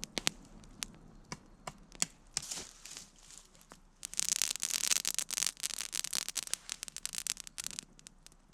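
Scattered sharp clicks and snaps, then about four seconds of dense crackling and rustling, like things being handled or brushed against.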